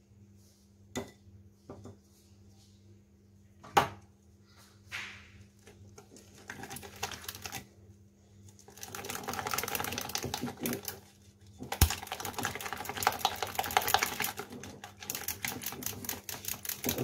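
Wire whisk beating thick chocolate batter in a glass bowl to break up lumps of flour. A few separate knocks at first, then from about nine seconds in fast, continuous clicking of the wires against the glass, with one sharp knock about twelve seconds in.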